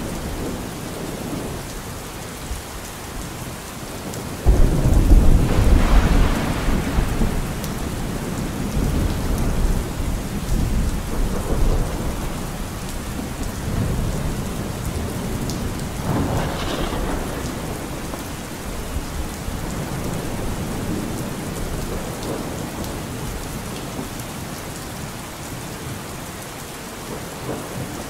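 Steady rain with thunder: a loud thunderclap breaks in about four and a half seconds in and rumbles away over several seconds, with a second, fainter roll about halfway through.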